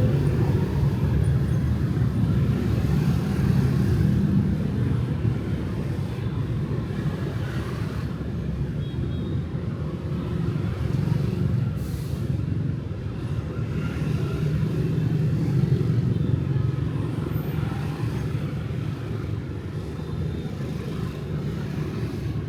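Steady rumble of street traffic, motorbike and car engines passing, swelling and easing. There is a brief hiss about halfway through.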